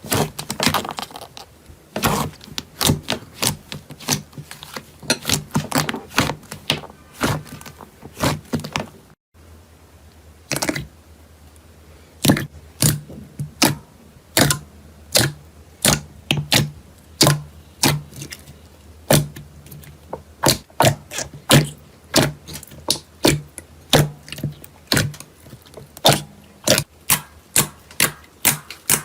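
Slime being squeezed and pressed by hand, giving a run of sharp crackling pops and clicks, about two a second. About nine seconds in the sound briefly drops out and goes on with a different background, as if from another slime.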